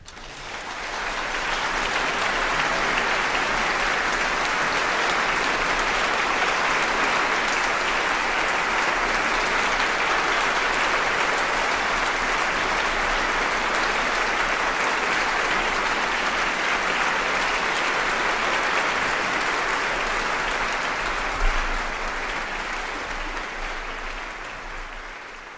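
Concert audience applauding at the close of a live orchestral performance: the clapping swells over the first couple of seconds, holds steady, and thins out near the end.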